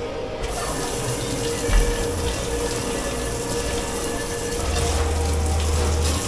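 Water running hard from a tap into a kitchen sink. It comes on suddenly about half a second in and then runs steadily over a steady hum.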